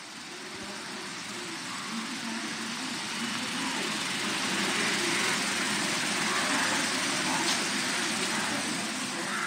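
Steady rushing outdoor noise that grows louder over the first few seconds, with faint, indistinct sounds underneath.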